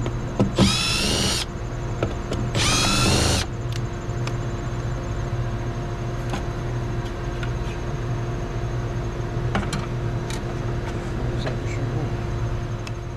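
Cordless drill/driver run in two short bursts, each motor whine rising in pitch as it spins up, working the screws at a GFCI receptacle's weatherproof cover. A steady hum carries on underneath, with a few faint clicks.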